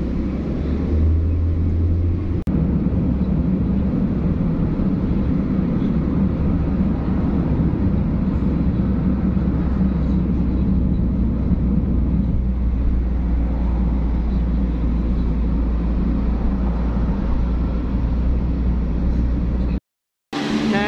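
Steady road noise inside a moving car at road speed: a continuous low rumble of tyres and engine with a hiss above it. It breaks off abruptly near the end.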